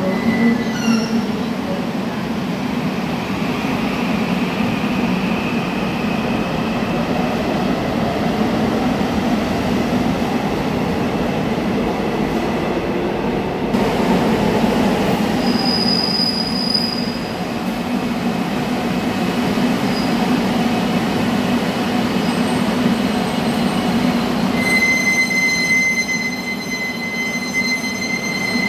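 Donghae Line electric commuter trains: one pulls out of the platform with its motors and wheels running on the rails, and another pulls in. A steady high-pitched wheel squeal sets in near the end.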